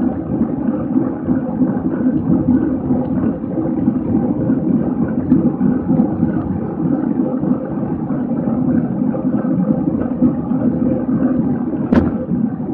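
Steady rushing wind and road rumble on the microphone of a camera carried on a racing bicycle at speed, with one sharp click near the end.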